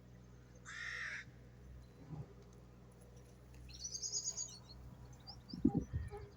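A single harsh, caw-like bird call about a second in, then a quick run of high chirps from a small bird around the middle, and a few low thuds near the end.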